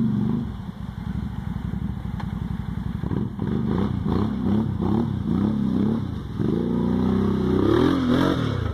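2008 Arctic Cat Thundercat 1000 ATV's V-twin engine revving up and down as it churns through a mud hole. Near the end the revs climb to their loudest as the rear tyres spin and it climbs out up the bank, then drop.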